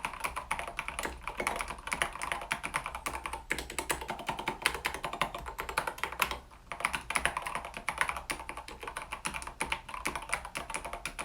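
Typing on a mechanical keyboard with Gateron Yellow linear switches and tall SA-profile ABS double-shot keycaps: a quick, uneven clatter of keystrokes, with a short pause about six and a half seconds in. There is only a very faint case ping, which the reviewer judges well damped.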